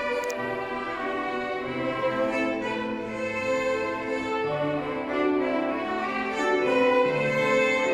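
A student violin ensemble of children and their teacher playing a piece together, bowing a melody of held and moving notes, with lower notes sounding beneath it.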